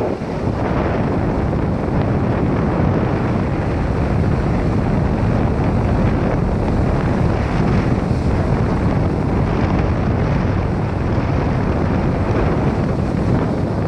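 Strong wind buffeting the microphone, a steady loud rumbling noise.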